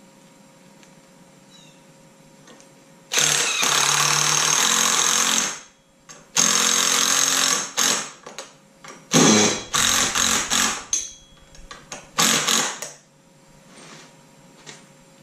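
Cordless drill running in bursts as it works into aluminum square tube: a long run of about two and a half seconds, a second run of over a second, then several short stop-start bursts and a last brief run.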